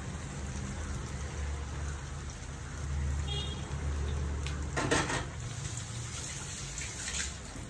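Chicken pieces deep-frying in hot oil in a pot, a steady sizzle, with two brief knocks, one about five seconds in and one near the end.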